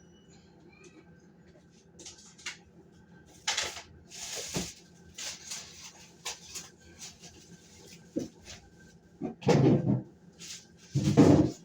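Groceries being handled and put away: scattered rustling and knocking, then two loud short voice-like cries, one near the end of the last third and one just before the end.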